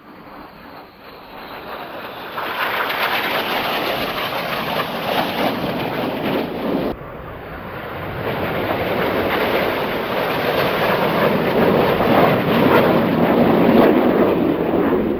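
Jet noise from a formation of BAE Hawk jets flying past: a loud, even rushing noise that builds over the first few seconds, drops sharply about seven seconds in, then builds again to its loudest near the end.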